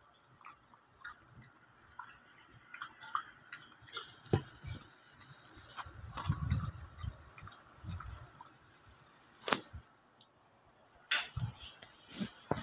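Jack Russell terrier puppy eating from a stainless steel bowl: irregular chewing and clicking, with a few soft thuds.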